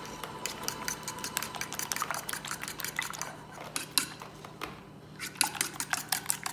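Fork whisking beaten eggs in a ceramic bowl: a rapid run of clicks as the tines strike the bowl, quickening near the end.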